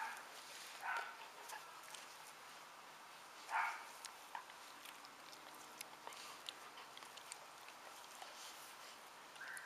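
Siberian husky making a few short vocal sounds while being petted, the loudest about three and a half seconds in. Faint scattered clicks throughout.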